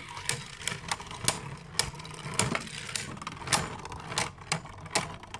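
Two Beyblade Burst tops spinning in a plastic stadium, clashing with irregular sharp clicks and clacks against each other and the stadium walls.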